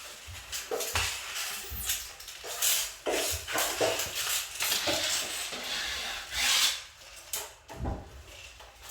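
Steel drywall finishing tool being drawn through wet joint compound: repeated scraping, rubbing strokes with a few light knocks.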